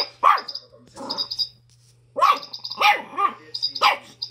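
A Schipperke barking repeatedly at a toy chick, about five sharp barks. Between and over the barks comes a high, rapid chirping from the toy chick.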